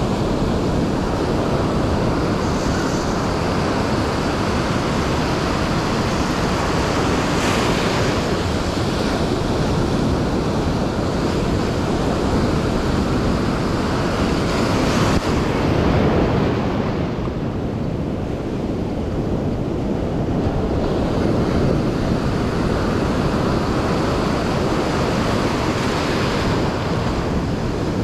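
Ocean surf breaking and washing up the beach, with wind buffeting the microphone. The wash surges louder twice, about a quarter of the way and halfway through.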